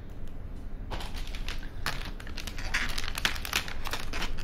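Rapid clicking, clattering and rustling of plastic and small hardware being handled, starting about a second in and running densely on.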